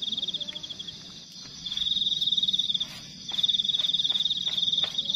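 A cricket-like night insect trilling at one high pitch: fast, even pulses in bursts of about a second or more, three in a row with short gaps. A few faint clicks sit under it.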